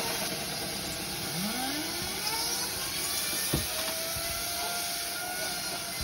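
Bouncy-house blower forcing air out through a dryer vent line: a steady rush of air, with a tone that slides upward about a second in and higher tones that hold steady through the second half.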